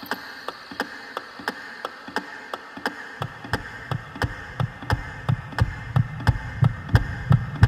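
Steady clock-like ticking, about three ticks a second, with a low thudding beat joining in about three seconds in and growing louder, the opening of a soundtrack laid over the title card.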